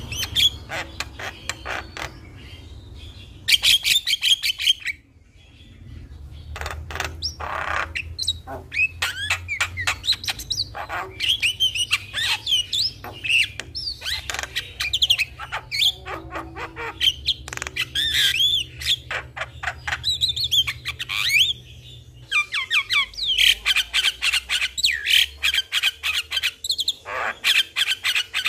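Javan myna (jalak kebo) singing a busy, varied song of whistled chirps, harsh squawks and long runs of rapid clicking notes.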